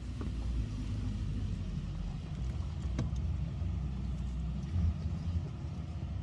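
Car engine and tyres rumbling low, heard from inside the cabin while driving through a parking garage, with a light click about three seconds in.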